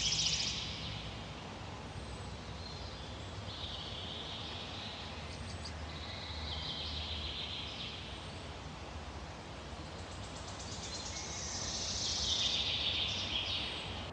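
A songbird singing: a fast trilled phrase that falls in pitch, given about four times a few seconds apart, over a steady low background noise.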